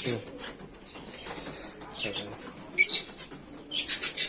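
Aviary birds in short, loud bursts of chirping and wing flapping, three or four times.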